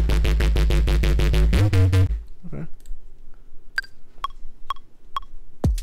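Bass house loop playing back from a DAW: a tight drum pattern under a synth bass, stopping about two seconds in. Four metronome clicks then count in one bar at 130 BPM, the first click higher than the other three, and the loop starts again as recording begins near the end.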